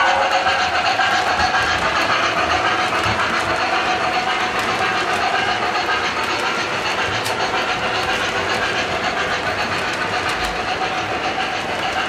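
MTH O-gauge model train (a Pacific steam locomotive pulling loaded flat cars) rolling along the track: a steady rumble and clatter of wheels that eases slightly as it goes. The locomotive's whistle trails off in the first half second.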